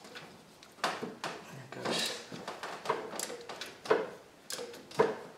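Metal hand tools knocking and scraping against engine parts while a wrench works on the alternator's lower mounting bolt: irregular clinks and rubbing, about half a dozen separate knocks.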